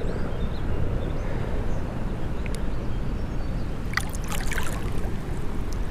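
River water rushing and gurgling steadily, with a brief burst of splashing about four seconds in, as a large smallmouth bass is handled and let go in the current.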